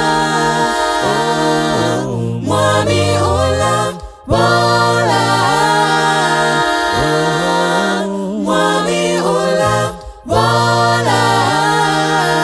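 Mixed a cappella choir of men's and women's voices singing a gospel song in close harmony, with no instruments: held chords over a moving bass part, in phrases broken by short pauses about every two to four seconds.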